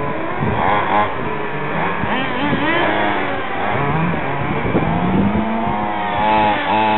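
Several radio-controlled on-road racing cars' small engines running together, their pitch repeatedly rising and falling as they rev and ease off around the track. They grow a little louder near the end as cars come closer.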